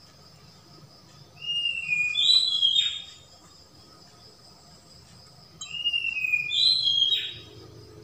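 A bird whistling the same two-note call twice, about four seconds apart: a lower, slightly falling whistle followed by a louder, higher note that drops away.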